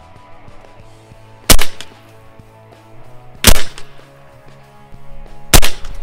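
Evanix Windy City .357-calibre big-bore PCP air rifle fired three times, about two seconds apart, each a sharp, loud shot.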